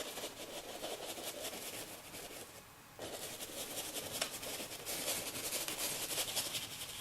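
Paint being worked onto a canvas: a rapid run of dry, scratchy strokes, with a brief pause a little under three seconds in before the strokes start again.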